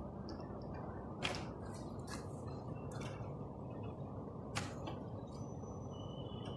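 Scattered sharp clicks and taps from hands working on a fire alarm control panel, two of them louder, over a steady low hum, with a faint short high beep near the end.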